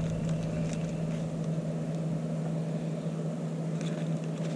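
Steady low hum of a propane burner heating a pot of frying oil, with a few faint rustles.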